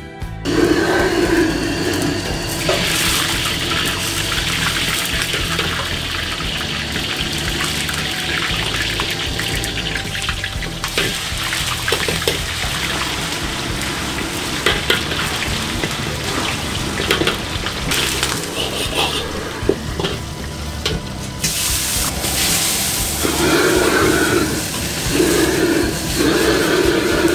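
Commercial wok station: oil sizzling in a wok over a gas burner, with water running from the stove's tap and a metal ladle knocking against the wok now and then.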